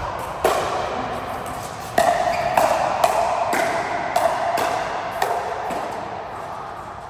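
Table tennis rally: sharp clicks of the ball off bats and table, about two a second, with a ringing tone under them, dying away near the end.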